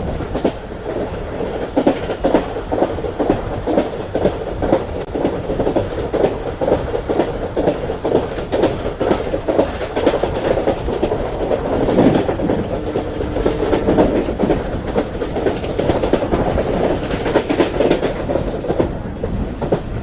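Wheels of a speeding Indian Railways express coach running on the track: a steady rumble with a dense, rapid run of clicks as the wheels pass over rail joints.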